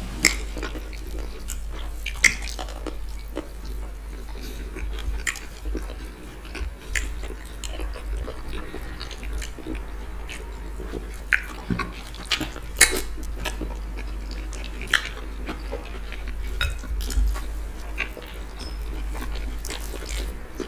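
Close-miked eating sounds: irregular wet smacks and clicks of chewing and of fingers working fufu and ogbono-okra soup, over a steady low hum.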